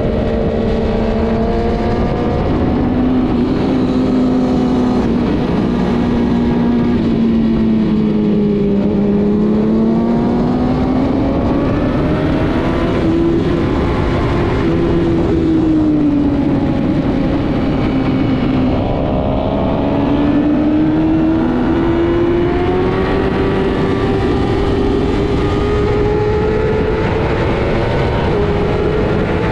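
Racing motorcycle engine running hard and steady, its pitch sinking slowly to low points about a third and two thirds of the way through, then climbing again, over a constant rumble.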